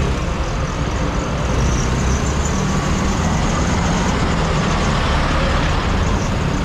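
Steady, loud road traffic noise with a continuous low rumble of vehicles running close by.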